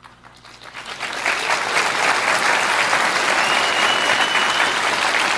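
Audience applause that builds over about a second into steady, dense clapping, with a brief high steady tone partway through.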